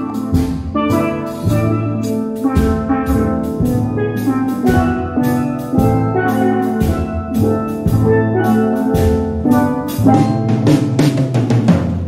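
Steel pan band playing a tune, with bass pans adding low notes and a drum kit keeping time. The drumming gets busier near the end.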